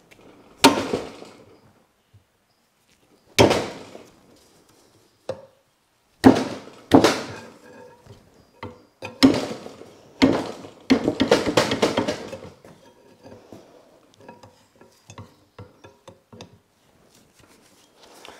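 Hard objects clanking and knocking together, like metal tools being handled and set down. There are a few sharp knocks a couple of seconds apart, then they come quicker, with a rapid clatter about eleven seconds in, and they trail off into light ticks.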